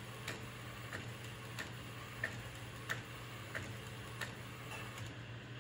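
Epson P405-based DTF printer printing on film: the print-head carriage shuttles back and forth, with a regular click about every two-thirds of a second over a steady low hum.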